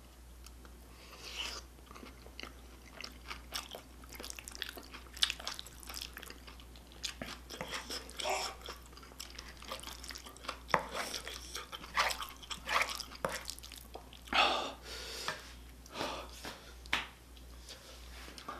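Close-miked chewing of spicy stir-fried octopus (nakji bokkeum) with noodles: a steady run of irregular wet mouth clicks and smacks, with a few louder bites in the second half.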